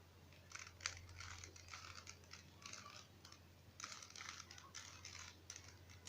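A plastic Rubik's cube's layers being turned by hand: faint clicking and scraping in a string of short bursts, as a move sequence inserts a second-layer edge piece.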